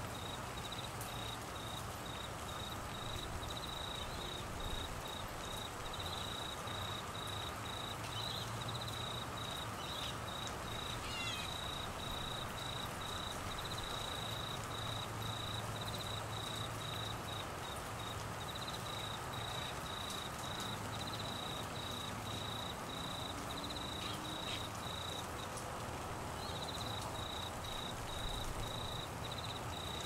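An insect chirping steadily, a high pulsed trill repeating about twice a second, over the even hiss of steady rain.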